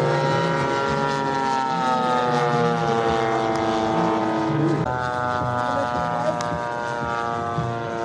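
Giant-scale radio-controlled model airplane engine and propeller running hard in flight. Its pitch slides up and down, with a sudden drop nearly five seconds in.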